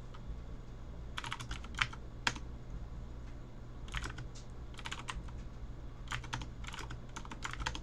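Computer keyboard typing in short bursts of keystrokes, with a couple of louder key presses about two seconds in, over a low steady hum.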